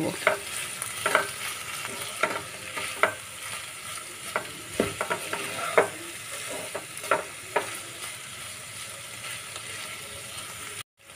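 Sliced spiny gourd frying in oil in a nonstick pan, with a steady sizzle. A slotted spatula stirs and scrapes the pan in irregular strokes, fewer toward the end. The sound cuts out for a moment just before the end.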